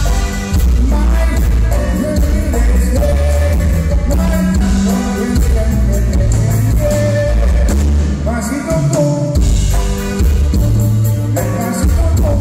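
Live band playing an accordion-led song with singing: button accordion over electric bass, congas and drum kit, keeping a steady beat.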